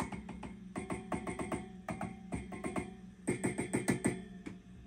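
Tube guitar amp (Fender 5G9 Tremolux clone) with the volume on 10, its speaker putting out quick clusters of ringing knocks as the tubes are tapped by finger: the tubes are microphonic, quite a bit of microphonics. A steady power line hum runs underneath.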